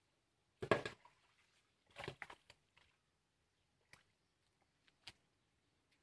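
Wet black mud being handled with gloved hands: a loud wet slap just under a second in, a cluster of squelches around two seconds, then two small sharp clicks later on.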